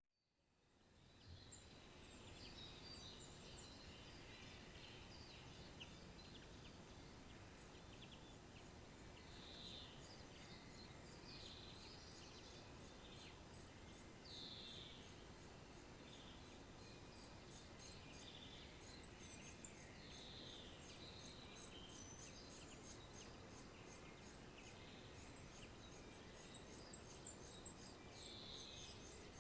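Eurasian treecreeper giving a long, even run of very high, thin calls, about five a second, that grows louder after the first few seconds. Fainter, lower down-slurred notes come now and then.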